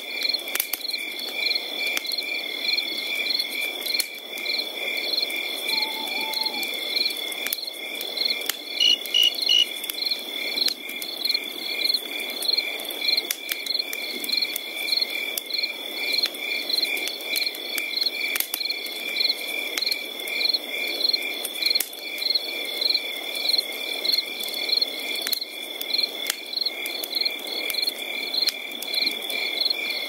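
A night chorus of chirping insects: rhythmic high chirps, several a second, over one steady high trill.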